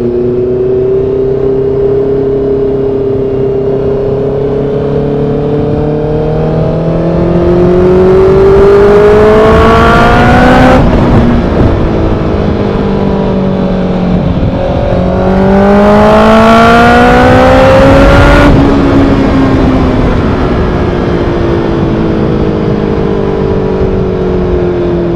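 Honda CB650R inline-four through a full-system SC Project aftermarket exhaust, ridden on the road: a steady cruise, then the throttle opens twice and the revs climb, getting louder, until the throttle is snapped shut about eleven and eighteen seconds in and the revs fall away on the overrun.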